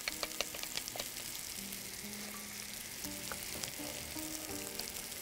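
Potato fries frying in hot oil in a pan: a steady sizzle dotted with sharp crackles, as a metal skimmer and wooden spatula stir through them.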